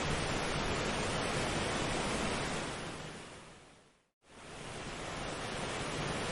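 Steady rushing noise of an ambient nature recording, like surf. It fades away to silence about four seconds in and quickly fades back up, as at the loop point of a background track.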